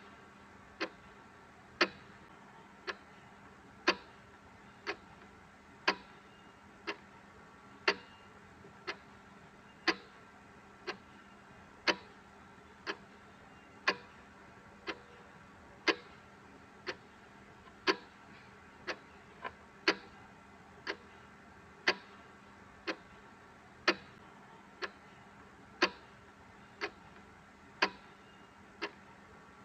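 Clock ticking about once a second, with a louder tick alternating with a softer tock, over faint steady ambient noise.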